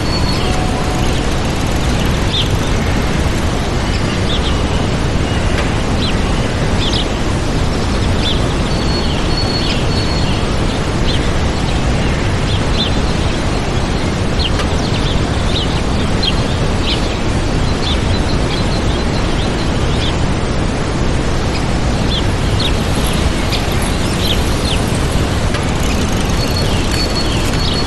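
Waterfall rushing steadily, with small songbirds giving short, high chirps over it throughout.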